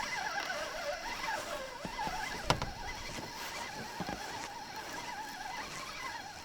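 Spinning reel being cranked to wind in a small hooked fish, its gears giving a faint wavering whir, with a sharp click about two and a half seconds in. The fish is too small to make the drag slip.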